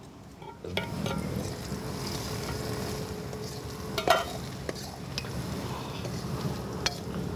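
Browned onions and spices sizzling in hot ghee in a metal kadai while a metal ladle stirs and scrapes them, with a few sharp clinks of the ladle against the pan.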